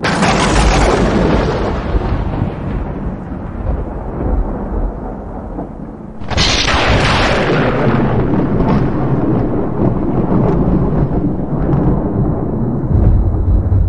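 Loud, deep thunder-like rumble. It starts abruptly, swells again suddenly about six seconds in, and stays heavy in the low end throughout.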